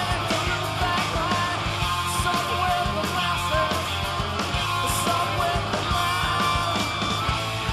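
Rock music soundtrack with guitar over a steady drum beat.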